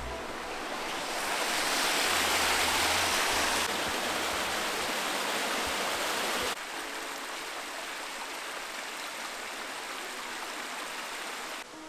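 Mountain stream running over rocks, a steady rush of water. It grows louder about a second in and drops suddenly about six and a half seconds in.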